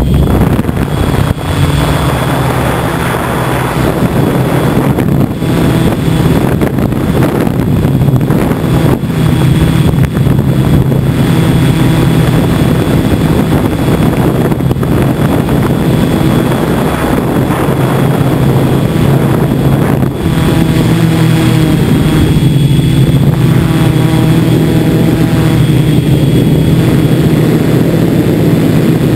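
Small camera aircraft's electric motors and propellers running steadily in flight, a constant low hum with a thin high whine over it.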